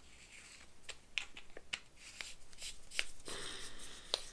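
Light, irregular clicks and scrapes of a Modlite weapon light's metal head being screwed back onto its body by hand after the battery is put in.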